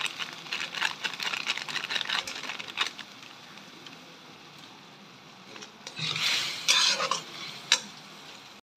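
Metal spatula scraping and clicking against a kadai while onion and spice masala fries, with a steady sizzle underneath. The clicks are densest in the first few seconds; a longer, louder scrape comes about six seconds in.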